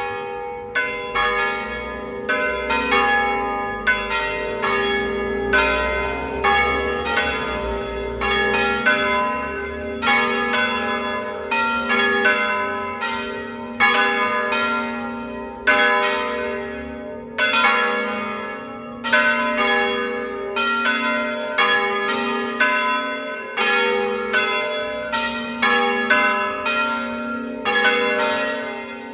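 Three church bells, cast by Cavadini of Verona, swung full circle on the Veronese system in a festive full peal (a distesa): strokes about one and a half a second in an uneven sequence, each ringing on and overlapping the next.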